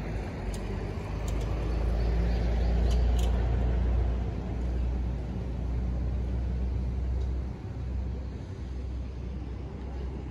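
Steady low outdoor rumble, swelling about two to four seconds in and easing near the end, with a few faint clicks.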